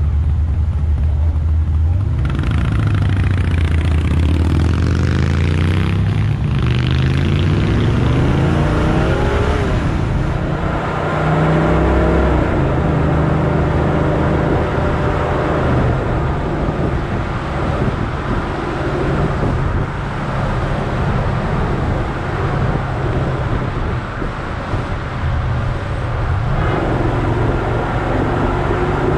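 Chevrolet Nova's engine pulling away from a stop, its pitch climbing through two gears over the first ten seconds, then running steadily at cruising speed.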